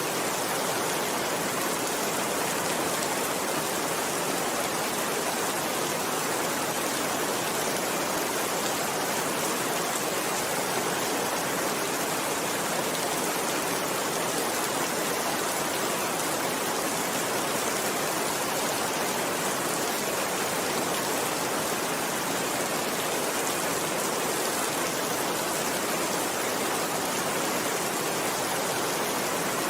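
Steady, dense rainfall with an even hiss that never lets up.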